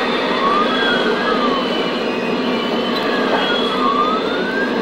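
A siren wailing, its pitch gliding slowly up and down, with two tones crossing each other. Underneath is a steady din from the running model trains.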